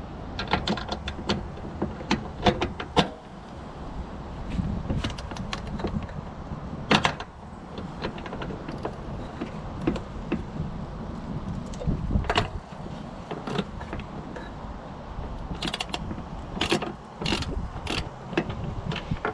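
Socket ratchet clicking in short, irregular runs, with metal clinks and knocks, as the bolt holding a hood latch is worked loose.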